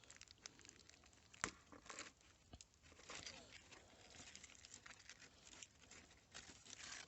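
Faint crinkling and rustling of aluminium foil being handled and opened, with scattered light clicks; one sharper click comes about a second and a half in.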